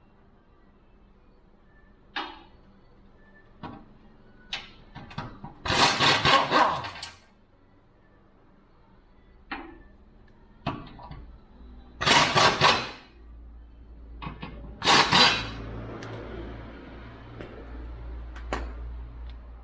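Tools at work on a car's underbody during removal of a worn subframe bushing: sharp metallic clicks and knocks, with three loud rattling bursts about a second long, around six, twelve and fifteen seconds in. A faint low hum runs under the last few seconds.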